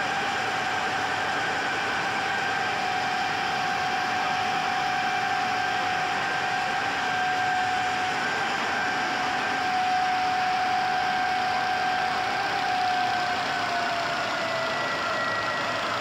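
GIDUE MASTER Combat flexographic label press running: a steady machine noise with a steady whine that drops slightly in pitch near the end.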